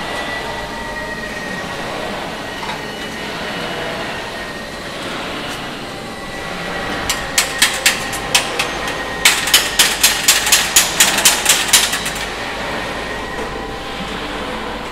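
Hammer striking metal while rivets are knocked out of an aircraft fuselage former: a few single taps about seven seconds in, then a quick run of about a dozen sharp strikes, roughly four a second, over a steady workshop hum.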